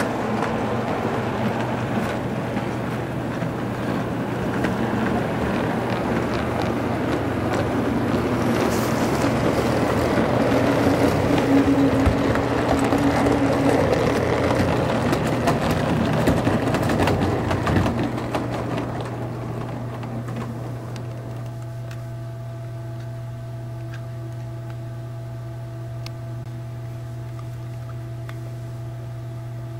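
O gauge model train running along the track, its wheels and motor making a continuous rumble that grows louder as it passes close by, then fades away about 18 seconds in, leaving a steady low hum.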